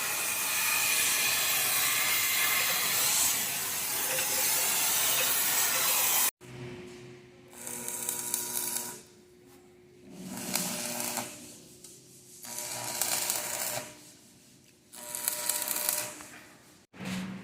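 Air-driven paint spray gun hissing steadily, then, after a cut, spraying in short passes of about a second and a half, about every two and a half seconds.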